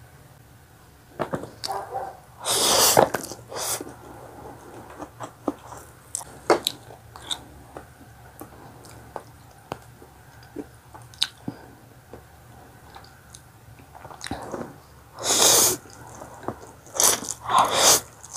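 Close-miked eating of stir-fried instant noodles: loud slurps of noodles about two and a half seconds in and again three times near the end, with wet chewing and small mouth clicks in between.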